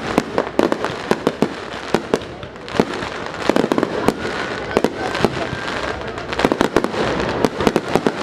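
Fireworks and firecrackers going off in rapid, irregular succession: many sharp bangs and cracks, thickest about three and a half seconds in and again near the end, with a faint whistle midway.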